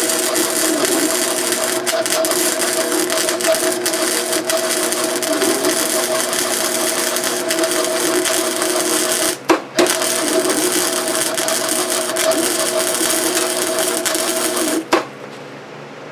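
Welding arc laying a bead on an exhaust pipe: a steady crackling sizzle over a hum, broken off briefly about nine and a half seconds in, then stopping about fifteen seconds in, leaving only a quieter low hum.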